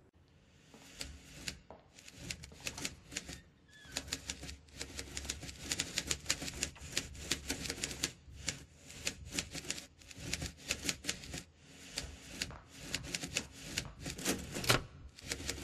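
Typewriter keys striking in rapid, uneven runs of clicks that start about a second in, with a few brief pauses.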